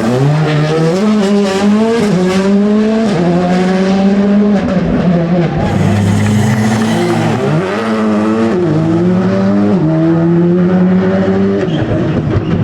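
Rally car engine revving hard, its pitch climbing in steps through upshifts and falling back several times as the car lifts off and pulls away again.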